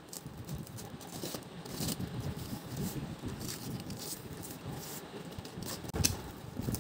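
Packing tape being peeled and the plastic-wrapped cardboard parcel rustling and crinkling as it is opened by hand, with many small clicks and one louder sharp noise near the end.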